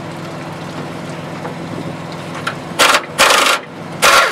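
An engine idling steadily in the background, with three short, loud hissing bursts close together near the end.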